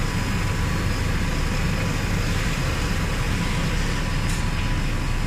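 Machinery of a brake pad powder-coating line running steadily: a constant low drone with a faint steady whine on top.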